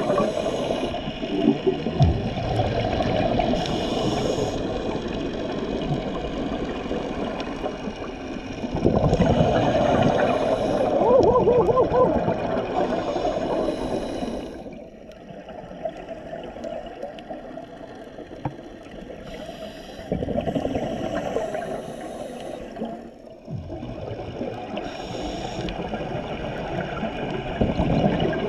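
A scuba diver breathing underwater: short hisses from the regulator every few seconds and gurgling bubbles on each exhale. The breathing goes quieter for a few seconds about halfway through.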